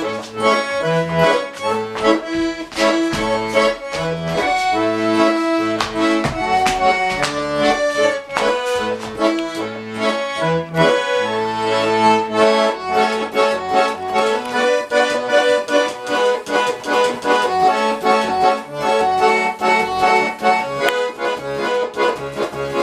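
Accordion playing an instrumental introduction, a melody over changing bass notes.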